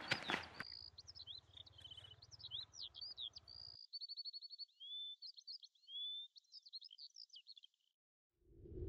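Birdsong: several birds chirping, whistling and trilling, which stops about eight seconds in. A low rumble rises just before the end.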